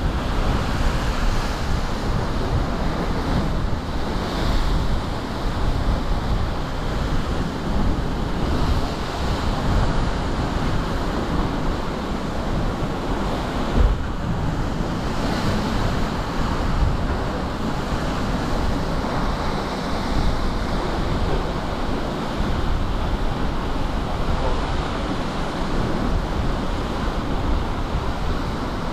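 Heavy surf crashing and churning in a narrow limestone sea-cliff inlet: a continuous wash of breaking waves with surges as each wave hits, and one sharper crash about halfway through. Wind buffets the microphone throughout.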